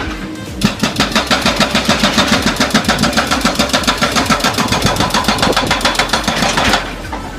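Hydraulic hammer breaker on a backhoe excavator hammering: a fast, even run of blows, several a second, starting about half a second in and stopping shortly before the end.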